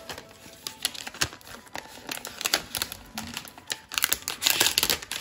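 Hands handling unboxing packaging: crinkling and rustling of a thin protective sheet and plastic wrap, with many small clicks and taps on the box insert. The rustling is densest and loudest about four seconds in.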